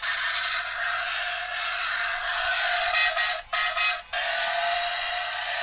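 Battery-powered toy cement mixer truck running, its built-in speaker playing electronic music and sound effects, with two brief breaks about three and a half and four seconds in.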